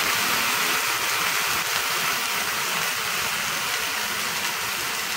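Marinated vegetables sizzling in a hot stainless steel kadhai just after going in for a sauté, a steady hiss that eases slightly toward the end.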